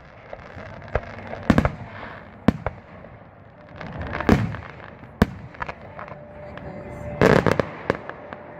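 Fireworks exploding: sharp bangs and smaller pops at irregular intervals, with a dense burst of crackling bangs near the end.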